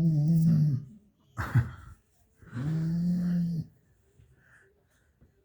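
A sleeping badger snoring: two long, even droning snores about two and a half seconds apart, with a brief sharp sound between them.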